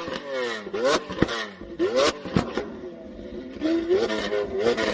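Lamborghini Aventador's V12 engine revved in repeated sharp blips, the revs shooting up and then falling away about once a second, with sharp cracks from the exhaust between some blips. The revving eases for a moment partway through, then resumes with shorter blips near the end.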